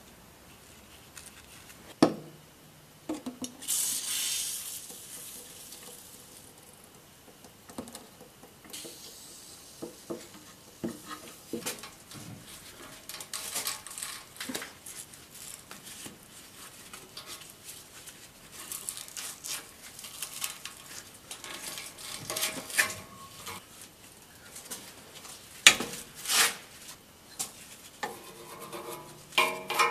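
Hand tools clinking and scraping against the exhaust and its steel hangers while an old rubber exhaust mount is worked off by hand: irregular knocks, clicks and scrapes, with a sharp knock about two seconds in and another near the end.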